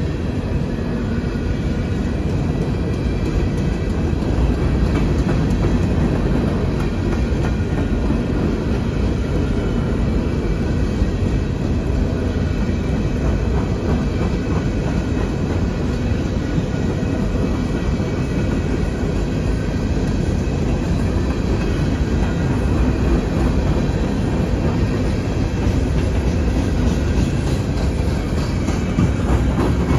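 CSX coal train's hopper cars rolling steadily past on steel wheels.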